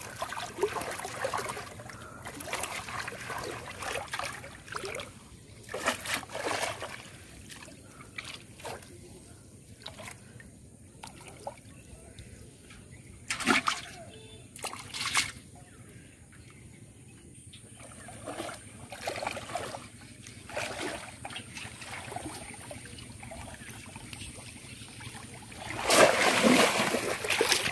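Shallow water splashing and sloshing in irregular bursts as hands grope inside a bamboo polo fish trap and grab the trapped fish. The loudest, longest burst of splashing comes near the end.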